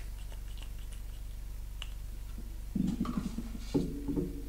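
Faint small clicks and taps from a glass foundation bottle with a pump being handled and pumped. About three seconds in there is louder, low handling noise with a few thumps.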